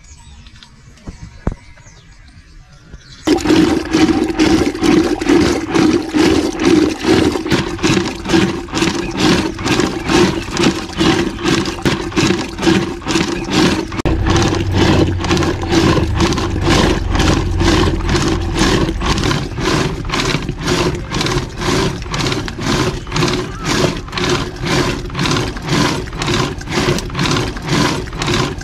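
Hand churning in a clay pot: a wooden churn staff spun back and forth by a pulled rope, making a rhythmic sloshing, one stroke after another. It starts about three seconds in, after a quieter stretch.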